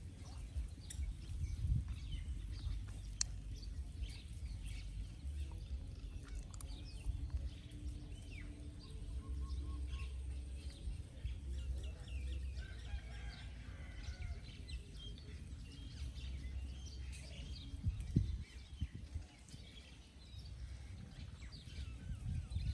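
Outdoor ambience of birds chirping and calling on and off over a low rumble, with a few low thumps about three-quarters of the way through.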